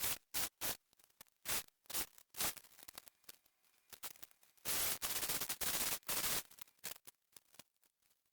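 Sharp metallic clicks and clatter of hand tools and parts during engine reassembly, with a dense run of rapid clicking lasting about two seconds midway.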